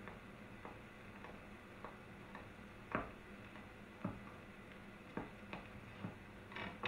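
Footsteps on a wooden floor: sparse knocks about a second apart, the clearest from about three seconds in, with a short rustle near the end.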